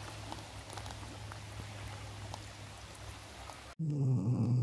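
River water running steadily over a stony bed. About four seconds in it cuts off sharply, and a dog gives a short, loud, low grunt.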